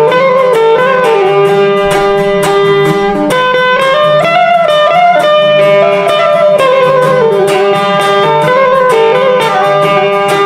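Instrumental background music: a plucked string instrument playing regular notes over a steady low drone, with a melody line that slides between pitches.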